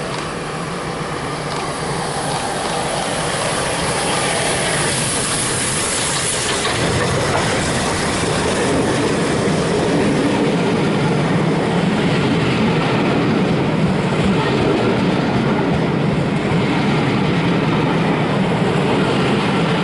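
GWR Castle-class steam locomotive 5043 and its train of coaches running into the platform. A high hiss comes about four to six seconds in, then the coaches roll past with wheels clacking over the rail joints, slowly growing louder.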